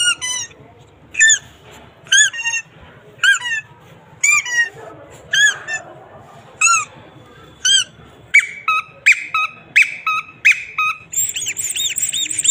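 A played-back squeaky chirp sound effect repeating about once a second, each chirp high and rising then falling. About eight seconds in it changes to a faster series of different chirps, and near the end a shrill warbling sound starts.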